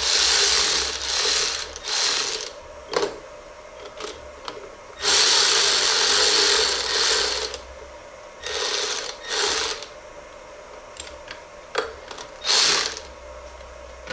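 Cordless drill-driver with a hex bit tightening the bolts on an injection-mold clamp's claws. It runs in four or five bursts, the longest about two and a half seconds, with short pauses and small clicks between them.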